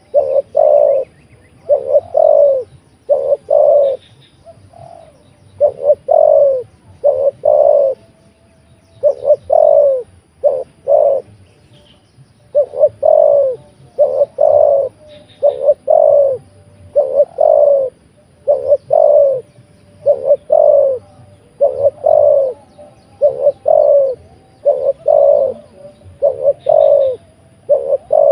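Spotted dove cooing loudly, repeating short phrases of two or three deep, slightly falling coos, about one phrase every one to two seconds, with a few brief pauses.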